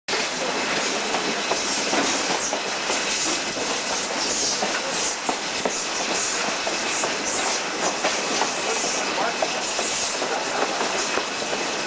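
Train rolling along the track heard from on board: steady rumble and wheel clatter, with hissy pulses about twice a second.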